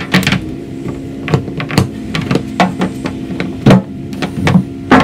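Stainless-steel grill-top sheet being flattened underfoot: the curved panel pops and clunks as weight shifts across it, a dozen or so sharp irregular snaps.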